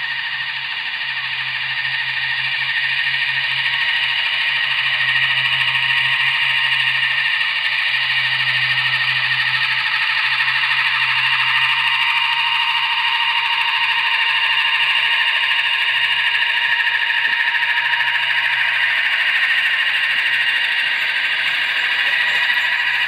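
Blade Nano S3 micro RC helicopter hovering close overhead: a steady, high-pitched motor whine over a low rotor hum that swells and fades.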